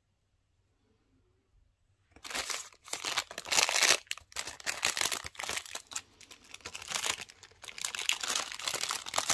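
Plastic packaging crinkling and crackling in quick irregular handfuls as wrapped items are handled and unwrapped. It starts suddenly about two seconds in, after near silence, and keeps going.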